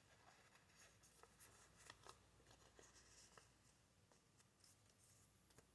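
Near silence with faint rustling and soft ticks of a trading card being handled and slid into a plastic card sleeve, mostly in the first few seconds.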